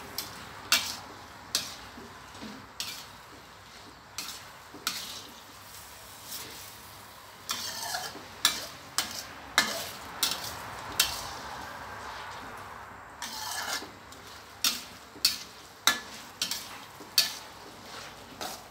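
Metal spatula scraping and clanking against a steel wok while soy-sauce rice noodles are stir-fried, over a steady sizzle. The sharp clanks come irregularly, about one a second.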